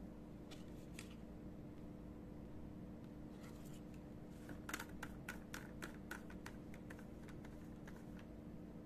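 Light plastic clicks and taps from handling the nozzle end of an electric paint sprayer, a few scattered at first and then a quick run of them about halfway through, over a faint steady hum.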